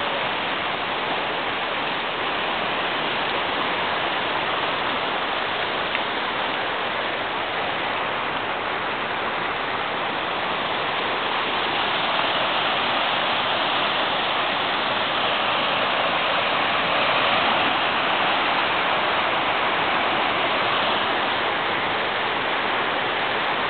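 Waterfall's falling water rushing in a steady, even roar of noise, growing a little louder about halfway through.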